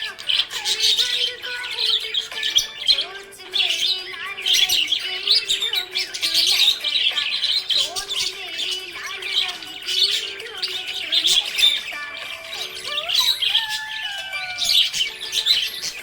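Budgerigars chirping and warbling busily in quick, overlapping calls, over background music with held notes.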